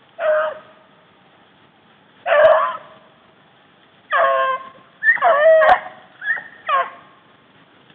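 Rabbit-hunting hounds baying in about six separate calls, some of them overlapping near the middle: dogs giving voice as they run a rabbit's trail.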